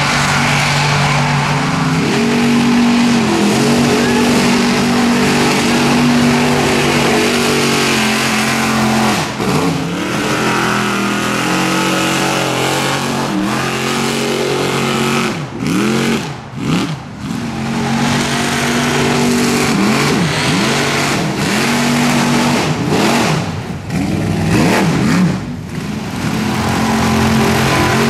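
Chevrolet pickup mud truck's engine revving hard through a mud bog pit. It holds high revs at first, then drops and climbs again several times as the throttle is worked, with quick blips of the throttle near the end.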